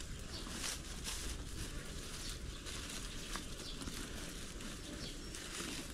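Outdoor rural ambience: a steady low rumble with scattered light rustles and clicks.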